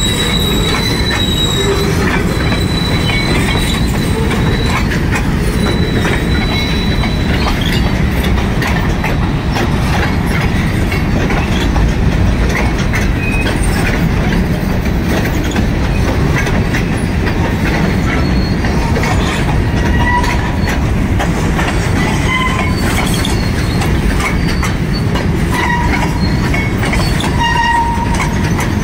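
Covered hopper cars of an empty grain train rolling past: a steady, heavy rumble of steel wheels on rail. A thin, high wheel squeal comes and goes over the first several seconds, and short squeals break in now and then through the second half.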